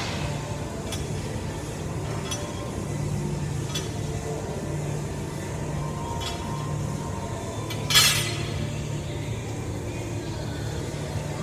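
Light metal clinks of a barbell being handled, with one loud clank about eight seconds in as the bar is set down on the floor, over a steady low hum.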